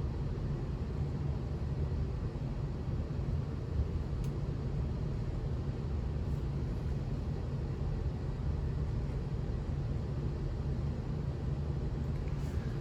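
Ceiling fans running: a steady low hum with an even airy noise.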